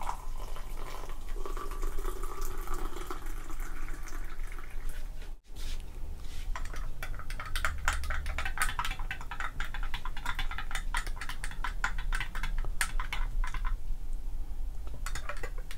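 Hot water poured into a glass mug of green tea powder for the first few seconds. After a short break, a long spoon stirs the tea in glass mugs, clinking rapidly against the glass.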